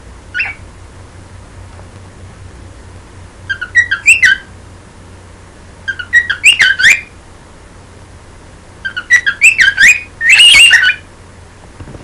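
Cockatiel whistling its song: a short chirp, then three runs of quick whistled notes a few seconds apart, the last one the longest and loudest, ending in a drawn-out warble.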